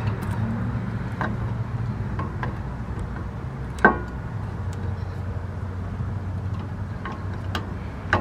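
Brake caliper being worked back over new pads onto its bracket: a few light metallic clicks and knocks, the loudest just under four seconds in. A steady low hum runs underneath.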